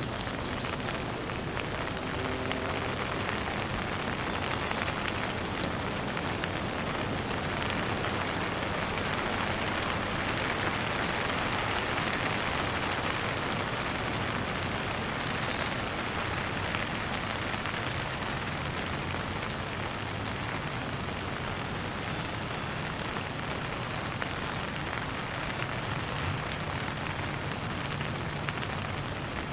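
Steady rain falling, a dense patter of drops, a little heavier around the middle, with a brief high chirp about halfway through.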